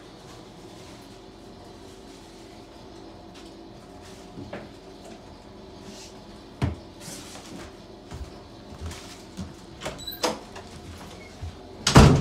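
Scattered soft knocks and rustles over a steady low hum, as the phone is handled and moved around the cat tree, ending in a loud rubbing bump against the microphone near the end.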